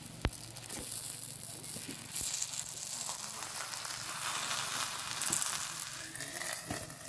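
Flatbread dough sizzling in oil on a hot griddle over a wood fire, a steady crackling hiss. Near the end there is a short knock as a steel plate is set over the bread to cover it.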